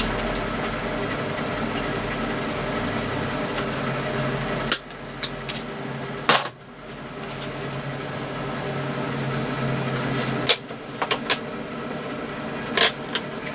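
SIP MIG welder running with a steady electrical hum. A few sharp clicks come about five and six seconds in and again near the end.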